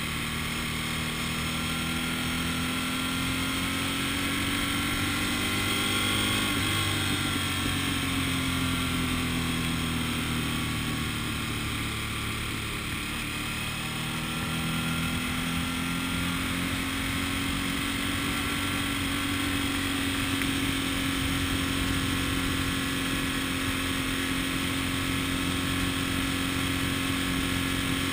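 A road vehicle's engine and road noise while driving. The engine pitch rises about six seconds in, eases off, then climbs again and holds for the rest of the stretch.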